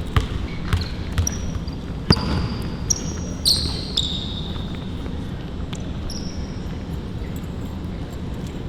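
A basketball bouncing on a court floor, with irregular sharp thuds, and several short high squeaks of sneakers on the court in the first half, during live one-on-one play.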